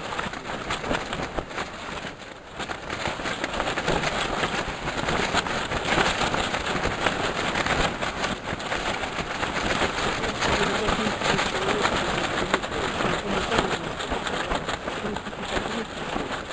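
Strong wind blowing across the microphone: an uneven rushing noise that rises and falls in gusts, easing briefly about two seconds in.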